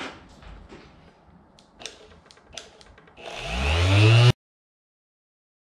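A random orbital sander fitted with a foam polishing pad starts up on the tabletop about three seconds in. Its motor whine rises in pitch as it spins up, then cuts off suddenly about a second later. Before it there are a few faint clicks and handling knocks.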